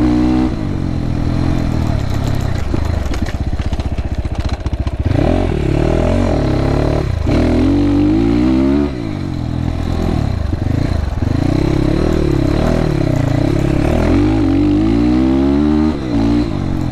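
GPX FSE300R dirt bike's four-stroke single-cylinder engine under way, its pitch rising and falling again and again as the throttle opens and closes, with a deep, throaty exhaust note. The throttle briefly closes about halfway through and again near the end.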